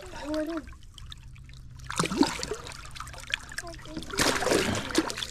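Water splashing in two bursts, one about two seconds in and a longer one about four seconds in, over a steady low hum.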